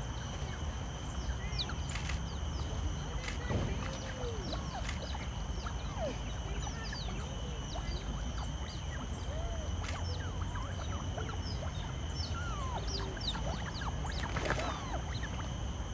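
Smooth-coated otters chirping and squeaking: many short, high calls that sweep in pitch, scattered throughout, over a low rumble and a steady high hum. A splash near the end as they slip into the pond.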